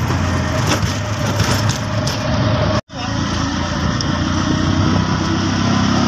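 A passenger auto-rickshaw's small engine runs steadily as the vehicle drives along a dirt road, heard from inside the open cabin. The sound drops out for an instant about halfway through.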